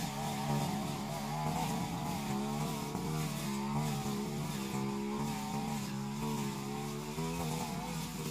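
Backpack brush cutter's small petrol engine running at working speed while it cuts grass and weeds. Its pitch rises and falls a little as the cutting head meets the growth.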